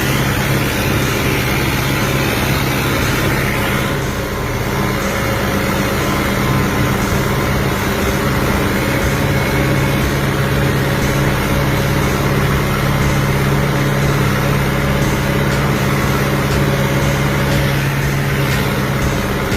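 Fiat 600 DT tractor's diesel engine running at a steady speed, as when pulling a plough.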